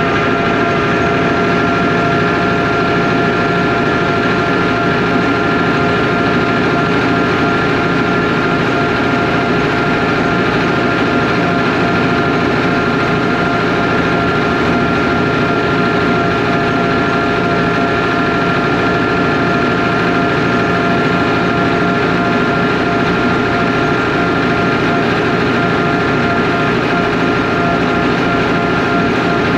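Zetor 3011 tractor's two-cylinder air-cooled diesel running steadily at road speed, heard from inside the cab. The note stays even with a few constant tones throughout.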